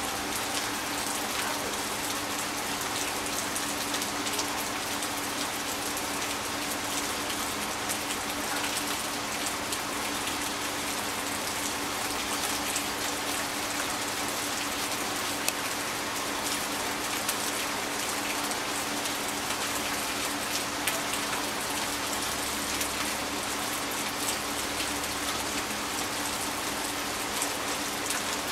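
Steady, even hiss with a low steady hum underneath.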